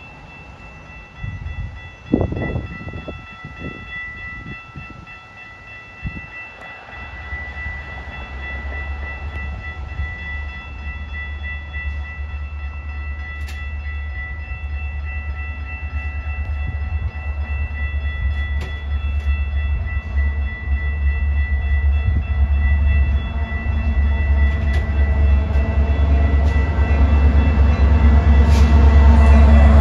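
Metra diesel commuter train approaching and pulling into the station, its engine and wheel rumble growing steadily louder. A steady high tone sounds through most of it.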